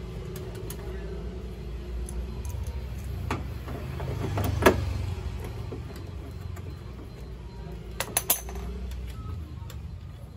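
T-handle socket wrench undoing the bolts of a car door's power-window regulator: a few sharp metal clicks and knocks, the loudest about halfway through and a quick run of three near the end, over a steady low rumble.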